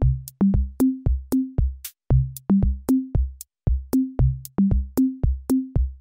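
Electronic background music: a drum-machine beat with a bouncy low bass line, its notes stepping up and down in a quick, even rhythm.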